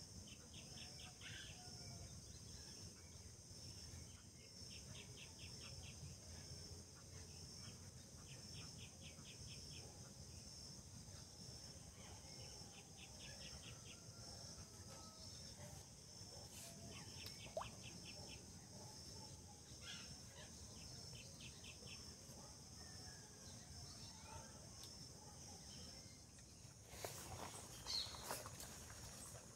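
Faint insect chirring, a steady high pulsing drone, with short trains of rapid chirps every few seconds. Near the end, a few seconds of rustling and knocks from handling.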